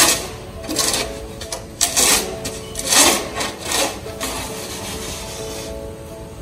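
Snow shovel scraping and scooping snow in about five short strokes over the first four seconds, followed by a softer steady scrape, over background music.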